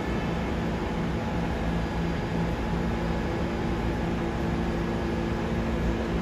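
New York City subway train creeping toward the platform: a steady hum and rumble with a few steady tones, no sharp events.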